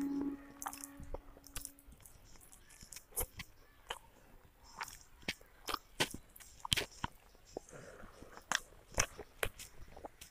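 Close-miked chewing of rice and chicken curry eaten by hand, with frequent sharp wet mouth clicks and smacks at an irregular pace. A steady hum fades out in the first couple of seconds.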